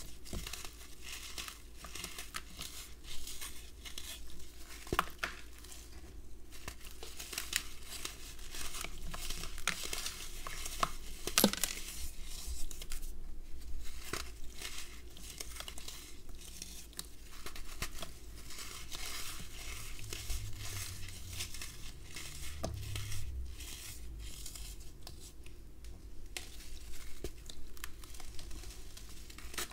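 Dry red sand blocks crushed and crumbled by hand into a basin of water: a dense, continuous crackling of crumbling sand, with crumbs and powder falling into the water and a few sharper cracks, the loudest about halfway through.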